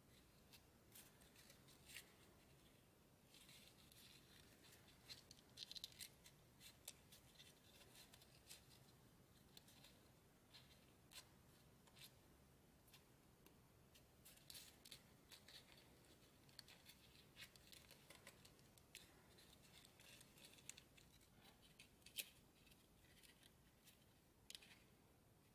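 Faint, irregular crackling and crinkling of shiny copper-coloured origami paper as fingers pinch, crease and shape a folded model, a scatter of sharp little crackles coming in loose clusters.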